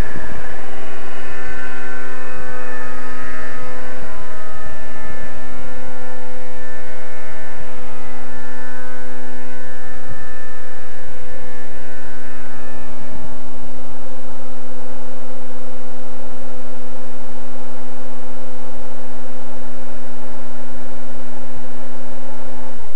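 Nitro glow engine of a Raptor 30 RC helicopter with 50 conversion, running loud at a constant high pitch: the newly fitted governor holds the engine speed steady. It stops abruptly near the end.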